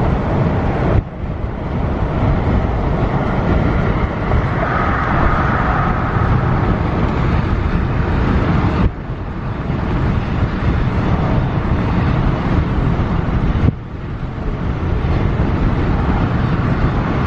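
Steady road and wind noise of a car moving at highway speed, a loud low rush, broken off abruptly three times.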